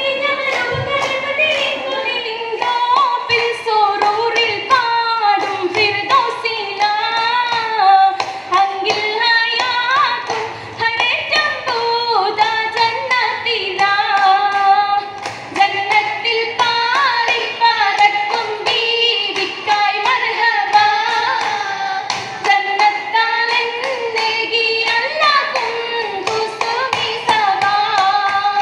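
Women singing an oppana song, a Mappila-style group melody, accompanied by a steady rhythm of hand claps.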